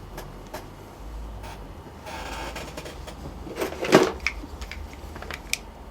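Small clicks and taps of tools and parts being handled on a workbench, with a short hiss in the middle and a heavier knock about four seconds in.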